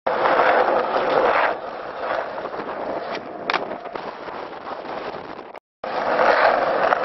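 Skateboard wheels rolling over rough asphalt, louder at first and again near the end, with one sharp clack of the board about three and a half seconds in. The sound cuts out briefly just before the end.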